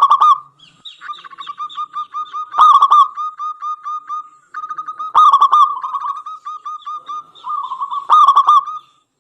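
Zebra dove (perkutut) singing: four phrases, each a loud opening coo followed by a quick run of short, clipped cooing notes.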